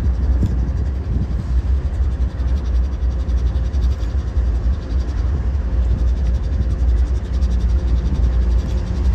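Stopped Union Pacific diesel-electric freight locomotives idling, a steady low rumble.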